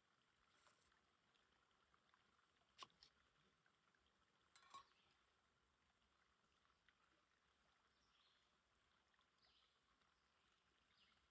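Near silence, broken by two faint short clicks, about three and five seconds in.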